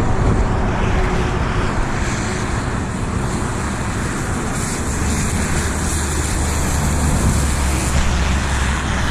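Road traffic passing on the bridge: a steady rumble of tyres and engines that swells for a few seconds past the middle, as a vehicle goes by.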